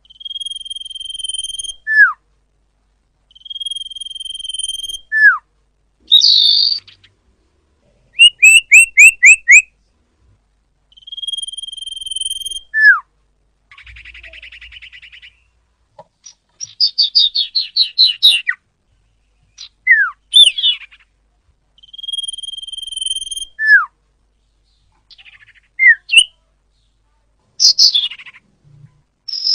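Recorded song of the bird known in Indonesia as sirpu or sirdung, played as a lure: a long, steady, high whistle followed by a quick falling note, repeated several times. Between these phrases come fast trills of about five notes, a harsh buzzy phrase and runs of rapid chips.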